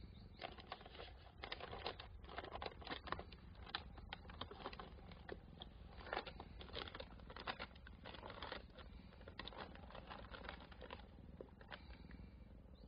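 Newspaper crinkling and rustling in irregular crackles under a cat's paws as it steps about on loose sheets, easing off near the end.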